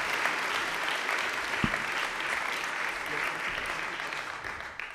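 Audience applauding, fading out near the end. A single low thump about a second and a half in.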